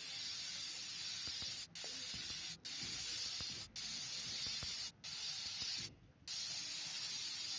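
Hand-held wire-fed metallizing spray gun hissing steadily as it blasts molten metal onto a steel beam. The hiss breaks off for a moment five times, the last gap about six seconds in being the longest.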